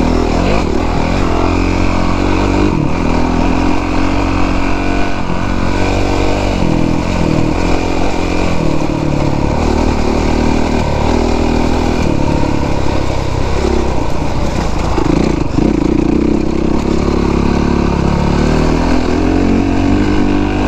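2017 Honda CRF450R's single-cylinder four-stroke engine running under load off-road, its pitch rising and falling as the throttle is worked along a rough gravel track.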